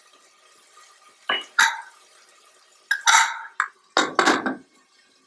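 Lid of an aluminium pressure cooker being put on and closed: a handful of short, sharp metal clanks and scrapes, starting about a second in and ending near the end.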